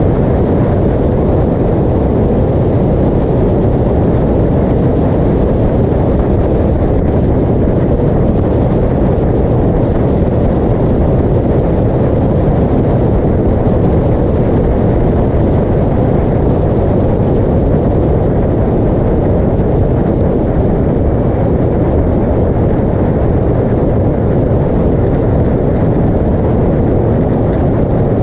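Motorcycle at highway speed: a steady low rush of wind on the microphone over the engine and tyre noise.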